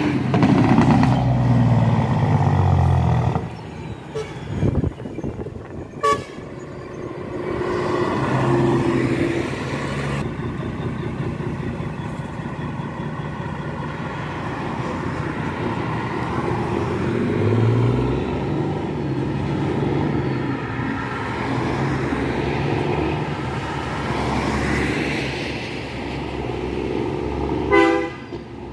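Highway traffic passing close by: a tractor-trailer's diesel engine goes past loudly in the first few seconds with its pitch falling, followed by steady car and truck noise. A vehicle horn toots in quick short beeps near the end.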